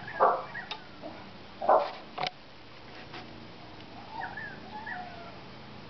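An animal calling twice, short loud calls about a second and a half apart, with a sharp click just after the second call. Faint chirping follows near the end.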